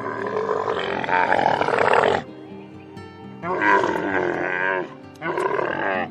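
Camel calling three times: a long rough, rattling call of about two seconds, then two shorter ones. Steady background music plays underneath.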